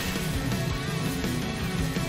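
Background music, steady and heavy in the bass.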